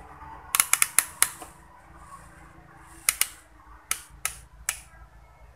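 Sharp clicks and snaps of small hand tools at work: a quick run of about six in the first second and a half, then a few more spaced out through the rest.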